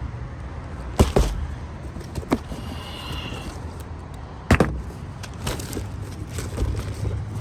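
Handling of tools and parts during hands-on installation work: a few sharp knocks and clicks, two strong ones about a second in and another about halfway through, over a steady low rumble.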